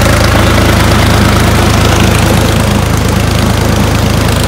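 Diesel engine running steadily at a fast idle, with an even low exhaust beat; it has just been started and is puffing black smoke while it warms up.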